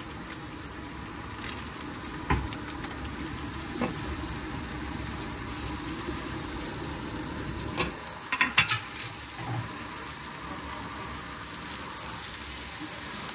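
Pasta boiling in a pot of water and a minced-beef tomato sauce sizzling in a pan on the hob, a steady bubbling hiss. A few sharp knocks come through it, with a quick cluster of them about eight seconds in.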